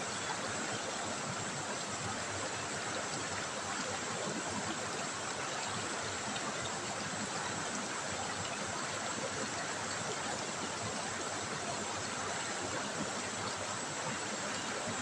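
River water trickling and running in a steady, even rush.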